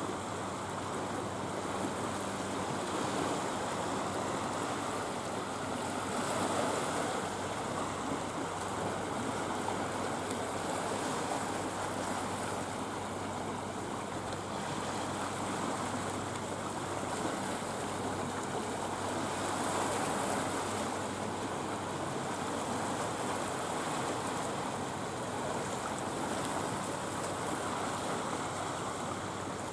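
Small sea waves lapping and washing over a rocky shoreline, a steady rushing that swells a little about six seconds in and again about twenty seconds in.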